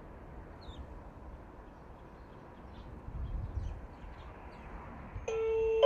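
Quiet outdoor ambience at a rural station platform, with scattered short bird chirps. About five seconds in, the platform's electronic train-approach chime starts ringing with steady bell-like tones. It is the warning that a train is arriving.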